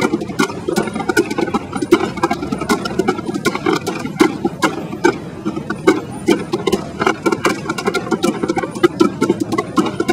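Tap shoes striking a wooden tap board in fast, irregular rhythms: a dense run of sharp clicks, several a second, with duller thuds of the board underneath.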